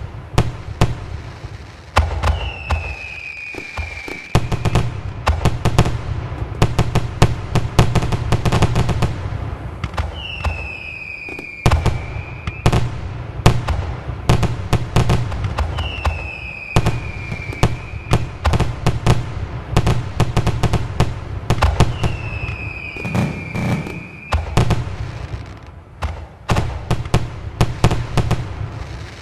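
Fireworks display: rapid bangs and crackles, with a whistle falling in pitch about every six seconds.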